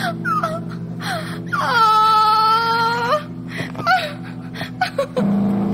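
A woman's high, wavering wail of dismay, about a second and a half long, with short whimpering squeaks before and after it, over a steady low hum. She is crying out over a guitar string that has just snapped.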